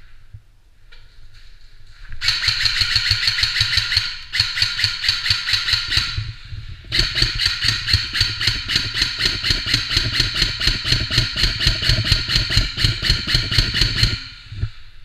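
Specna Arms SA-A20 airsoft electric rifle firing out of a window in long strings of rapid, evenly spaced shots, three strings in all, the last about seven seconds long.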